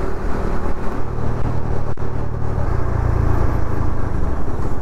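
Bajaj Dominar 250 motorcycle's single-cylinder engine running at highway cruising speed, with steady road noise from riding. The sound drops out for an instant about two seconds in, and the low rumble grows louder soon after.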